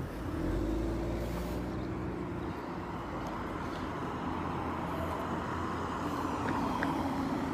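A car driving along a road: steady engine and tyre noise with a low rumble.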